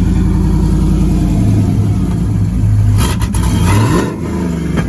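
Chevrolet Trailblazer SS's 6.0 L LS2 V8 running loud and steady just after being started, with a brief rise in engine pitch about three and a half seconds in before it settles lower.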